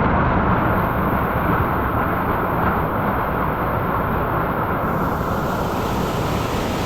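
Waterfall's rushing water heard close up: a loud, steady rush with no break.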